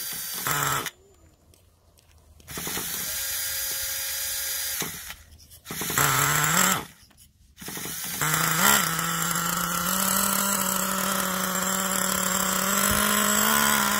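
Losi 8 truggy's small nitro engine being started: a buzzing whir in several short bursts, then running steadily from about eight seconds in.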